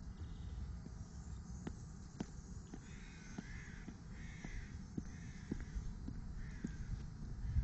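A crow cawing, a string of harsh calls starting about three seconds in, over the soft, even footsteps of a person walking on pavement and a low rumble on the microphone.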